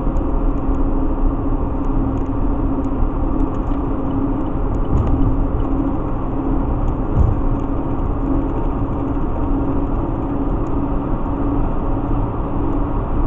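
Steady road noise heard from inside a vehicle cruising at highway speed: tyre and wind rush under a constant low engine hum.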